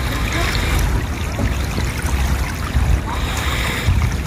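Steady running and splashing water at a children's pool, under a low rumble.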